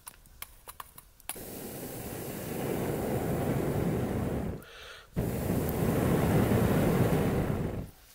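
Two long blows through a thin metal blow tube into a small fire, air rushing and the flames flaring, with a quick breath drawn in between. A few light clicks of sticks come first.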